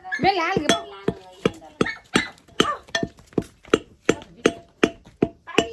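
Steady pounding in a wooden okhli mortar with a pestle, about two and a half strikes a second, each hit giving a short clink: the soaked lentil mix for batuk being pounded into batter. A voice sounds briefly near the start.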